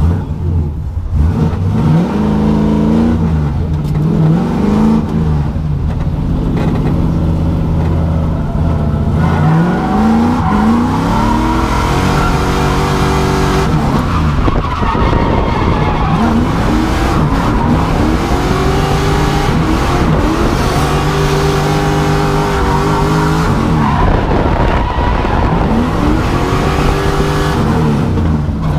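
LS V8 engine of an E36 BMW drift car revving up and falling back again and again through a drift run, with tyres skidding. The tyre noise grows louder about nine seconds in.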